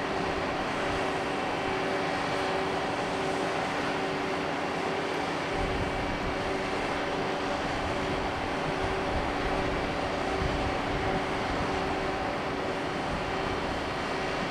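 Steady machinery hum from a cruise ship, with a few held tones, one pulsing about once a second, over a noisy drone; a deeper low rumble joins about five and a half seconds in.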